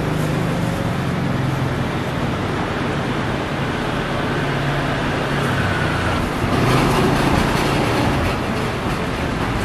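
Street traffic noise: a steady roadway rumble with an engine hum, which swells louder for a couple of seconds as a vehicle goes by close, past the middle.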